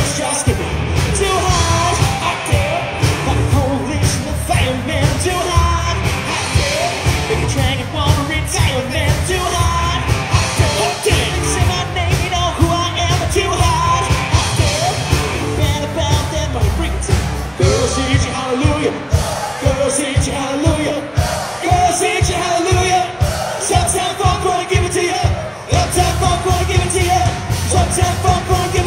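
Pop-rock band music from a PA: drums and bass keeping a steady beat under electric guitar, with a male voice singing.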